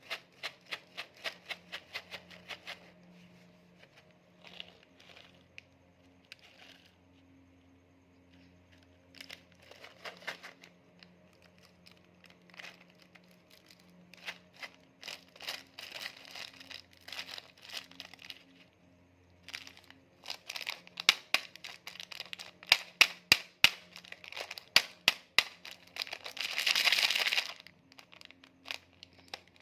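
Plastic snack packaging crinkling and crackling as it is handled, in scattered short clicks that thicken into a dense run late on, with a longer rustle or tear of the wrapper near the end.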